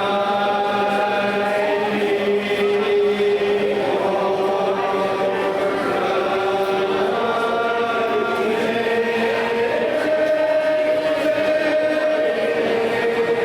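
Music of long held, choir-like notes, each held for a few seconds before stepping to a new pitch.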